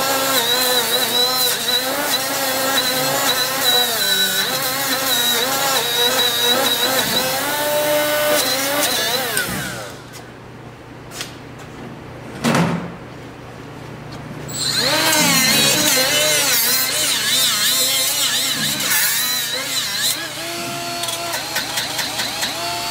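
Milwaukee cordless die grinder spinning a small wire wheel against the steel bracket, cleaning it for welding; its whine wavers in pitch as the wheel loads on the metal. It stops for about five seconds near the middle, with one brief knock, then runs again.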